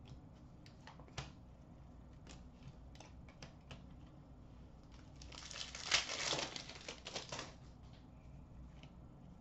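A trading-card pack wrapper being torn open and crinkled for about two seconds, midway through. Around it come scattered light clicks and taps of cards being set down on a glass counter.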